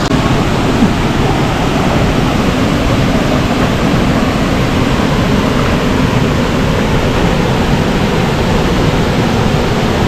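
Steady rushing of a small waterfall pouring into a rock pool, a constant, even roar of falling water.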